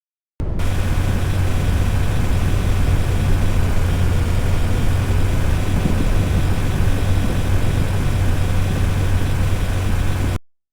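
Steady vehicle running noise, a low drone with a broad hiss over it, typical of riding inside a moving car. It starts after a moment of silence and cuts off abruptly near the end.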